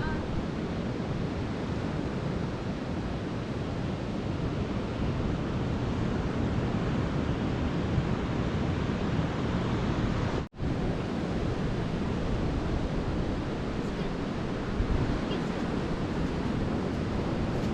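Ocean surf washing steadily, with wind buffeting the microphone. The sound cuts out for an instant about ten and a half seconds in.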